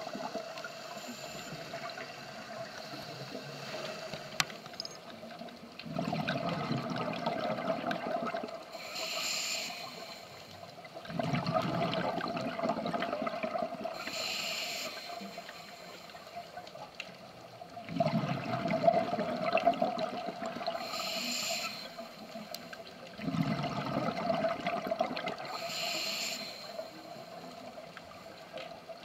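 Scuba diver breathing through a regulator underwater, with a breath about every five to six seconds. Each breath pairs a longer bubbling rush of exhaled air with a shorter hiss from the regulator, over a faint steady tone.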